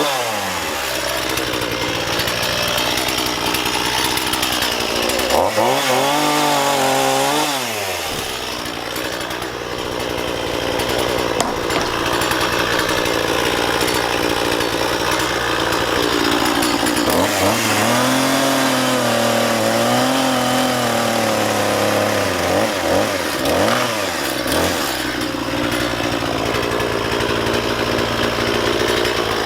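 Two-stroke chainsaw running hard while cutting out an old rotten timber beam. Its engine speed dips and recovers as the chain loads up in the wood, once about six seconds in and several times later on.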